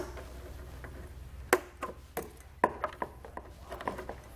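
Sharp plastic clicks and taps, about ten of them at irregular intervals, as the locking tabs and wiring connectors on the back of a 2020 Jeep Grand Cherokee taillight assembly are unlatched and pulled off.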